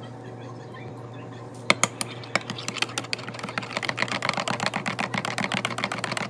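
Rapid, irregular typing on a computer keyboard, starting about a second and a half in, over a steady low hum.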